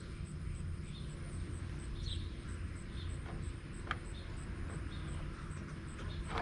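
Insects chirping in a regular high pulse about three times a second, with short bird-like chirps about once a second, over a steady low hum. Two sharp clicks, one about four seconds in and one at the end.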